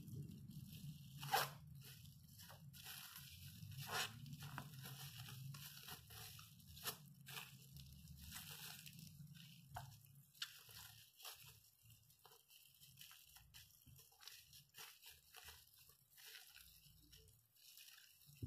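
Clear plastic wrap crinkling and crackling in the hands as it is wrapped and twisted tight around a ball of raw seasoned pork, with irregular small crackles and two sharper snaps about a second and a half and four seconds in. A low hum underneath fades out about halfway.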